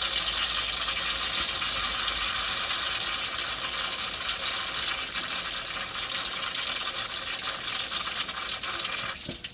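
Water gushing hard from a brass hose spigot and splashing over a small test vial held in the stream to rinse it. The flow stops suddenly near the end.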